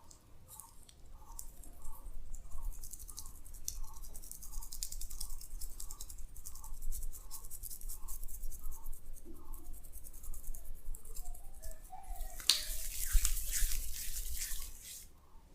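Hands scrubbing and rubbing on skin during a massage, a dry hissing scrub that starts about a second and a half in, grows loudest near the end and then stops. Under it, a faint pulse repeats about three times a second.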